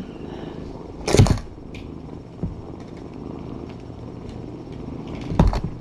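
Cat purring steadily as kittens nurse, with a brief loud rustle about a second in and a few short rustles near the end.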